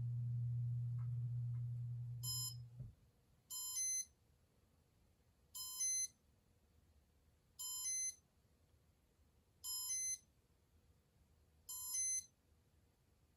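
Casablanca Comfort Touch fan control beeping during its test mode: a short double electronic beep repeated six times, about every two seconds. Before the beeps, a steady low electrical hum stops abruptly about three seconds in.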